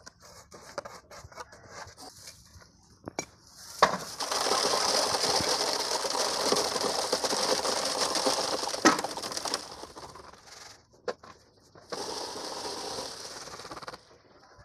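Wet concrete poured from a bucket into a wooden column form beside concrete blocks, a loud steady rushing pour lasting several seconds, with a knock from the bucket near the start and the end. Before it come faint clicks and scrapes of a trowel working mix in the bucket, and near the end a shorter, quieter spell of the same pouring noise.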